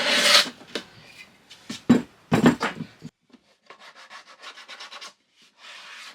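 Block plane shaving the corners of a plywood drawer in short strokes: a few loud scraping strokes in the first three seconds, then a quieter run of lighter rasping strokes.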